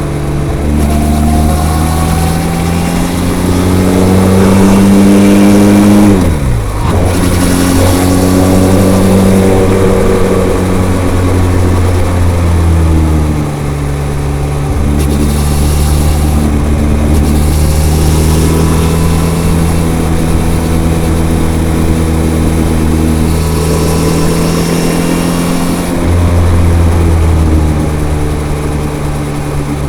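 Benelli TRK 502's parallel-twin engine through its stock, unmodified exhaust, pulling up through the revs for about six seconds, then dropping sharply and building again. It holds a fairly steady pitch through the middle, with the revs falling away near the end.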